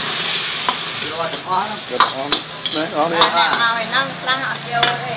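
Metal ladle clanking and scraping against a carbon-steel wok during stir-frying, over a steady sizzle of food in hot oil. The sizzle is loudest in the first second, and the ladle gives several sharp clinks on the wok.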